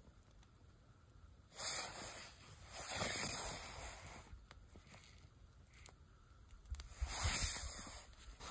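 Breath blown in three long puffs onto a smouldering fire of wet pine kindling and needles, each a rush of air lasting about a second, to coax it into flame.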